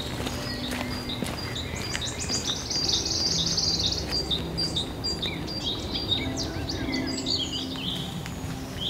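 Several songbirds singing at once: overlapping high chirps, quick trills and rapidly repeated notes, busiest in the middle of the stretch, over a faint low hum.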